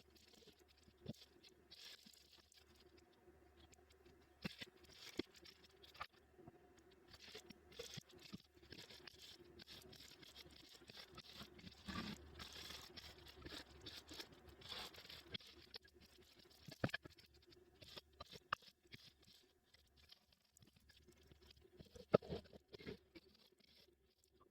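Quiet handling of laptop parts during a Dell motherboard replacement: scattered small clicks and taps with stretches of light scraping and rubbing, busiest midway, with a couple of sharper clicks near the end.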